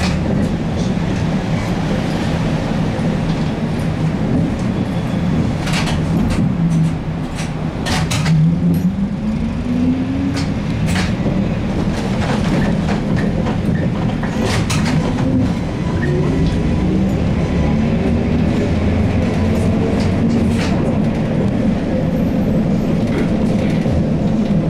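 Inside a ZiU-682G trolleybus under way: steady running rumble with the traction motor's whine, which dips and rises again about seven seconds in and climbs steadily after the middle as the trolleybus picks up speed. Scattered knocks and rattles come from the body.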